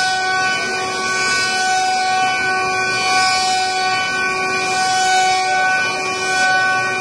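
Multi-spindle CNC wood-carving router running, its row of electric spindles whining steadily at several pitches at once over the hiss of the bits cutting wood.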